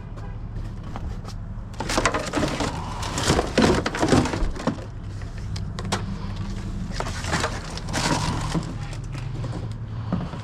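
Scrap being handled: irregular knocking, rattling and scraping start about two seconds in, over a steady low engine hum.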